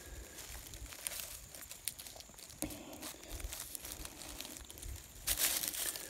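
Dry oak leaves and pine straw rustling and crackling as they are disturbed on the forest floor, with a louder rush of rustling near the end.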